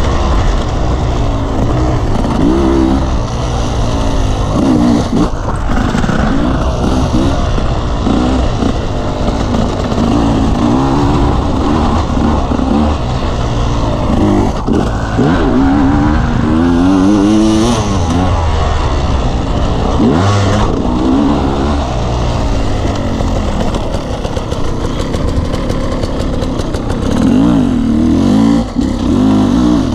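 Dirt bike engine heard on board while riding off-road trails, revving up and falling back again and again as the throttle opens and closes.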